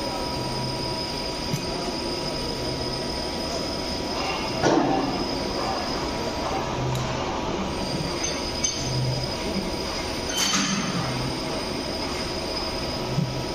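Steady machine noise of a CNC turning shop, with faint high whining tones and a low hum that swells and fades every second or two. A short falling squeal comes about four and a half seconds in, and a brief metallic clatter near ten and a half seconds.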